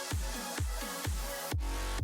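Electronic dance music with a steady kick drum about twice a second; the beat changes near the end.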